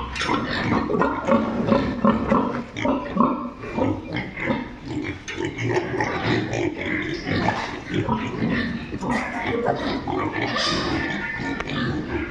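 Farmed pigs grunting in a continuous, overlapping chorus, with a sharper, higher call a little before the end.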